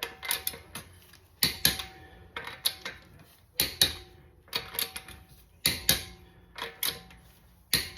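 Click-type torque wrench on a car's lug nuts: sharp metallic clicks, often two or three close together, every second or so, as each nut is tightened to 80 foot-pounds.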